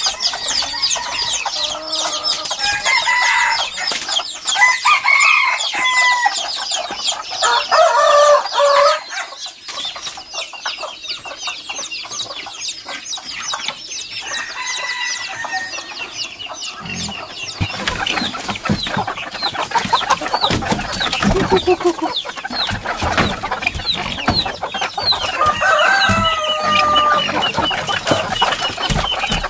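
Chickens clucking and chirping throughout, with roosters crowing several times in the first half and once more near the end. In the second half, wing-flapping and scuffling come from birds stirred up in a bamboo coop.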